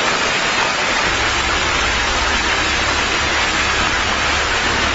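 Steady rushing and splashing of a water fountain's spray, with a low hum underneath from about a second in.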